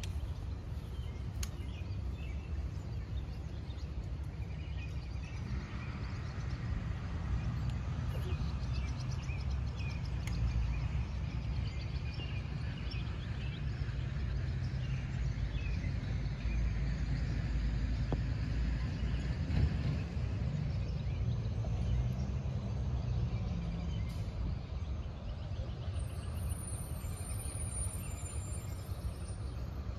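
Outdoor ambience: a steady low rumble with small birds chirping here and there, most of the chirps in the middle stretch.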